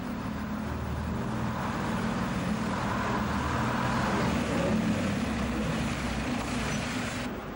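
The 62-horsepower Gardner diesel engine of a road-bus-style railbus running as the railbus draws in. It grows louder to about four or five seconds in, then eases off, and the sound drops away suddenly near the end.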